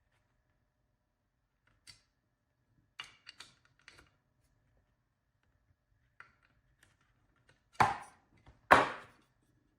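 Parts and tools being handled on a workbench during a drone build: a few faint clicks and taps, then two louder knocks about a second apart near the end.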